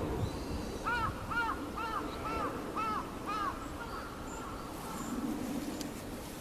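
A crow cawing six times in a quick, even series, about two calls a second, each call a clear rising-and-falling 'kaa'. A steady low rumble runs underneath.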